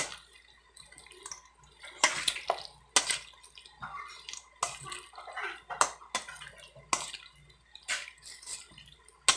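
Bare hands squeezing and mixing chopped boiled pork coated in mayonnaise in a stainless steel bowl: wet squelching, with sharper smacks about once a second.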